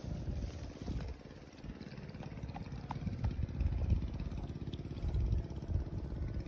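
Small engine running steadily, under an uneven low rumble.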